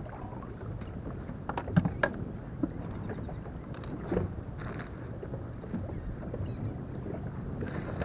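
Scattered knocks and clicks of fishing gear being handled in a small boat, a cluster about a second and a half in and more around four seconds, over a steady low rumble.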